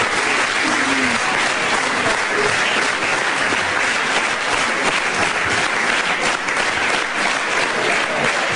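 Studio audience applauding steadily, a dense, even clapping that holds at the same level throughout.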